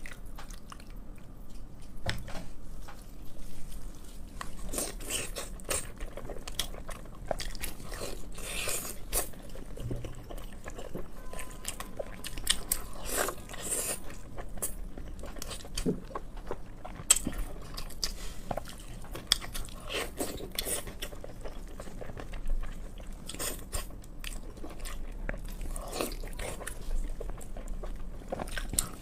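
A person eating close to the microphone: irregular bites and chewing, with crunching and wet mouth sounds, in a mukbang-style close recording.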